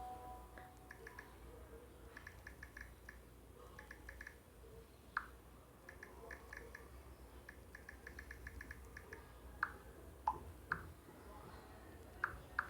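Smartphone on-screen keyboard clicking while a message is typed: quick runs of light, even ticks in short bursts, with a few louder single taps.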